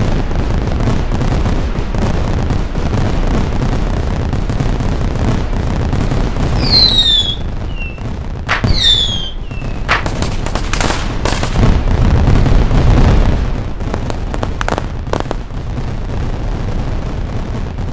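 Aerial fireworks going off: a continuous rumble of bursts and crackle, with falling whistles about seven and nine seconds in and a run of sharp cracks between about ten and fifteen seconds in.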